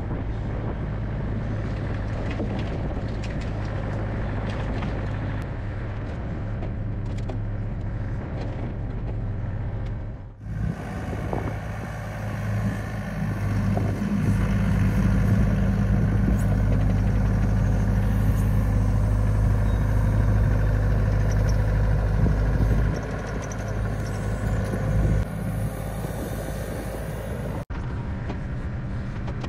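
Compact excavator's diesel engine running steadily while its log grapple handles logs. The engine grows louder for a stretch in the middle, as under hydraulic load.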